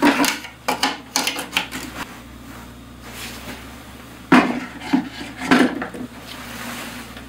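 Hard objects clattering and knocking as they are handled: a quick run of knocks at the start, a quieter pause, then several more knocks about four and a half seconds in.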